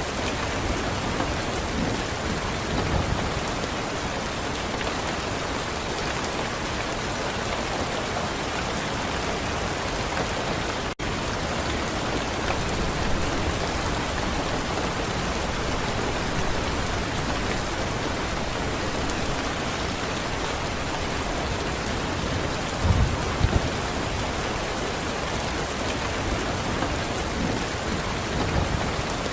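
Steady rain falling, an even hiss of drops, with a split-second break about a third of the way in and a few brief low thumps about three-quarters of the way through.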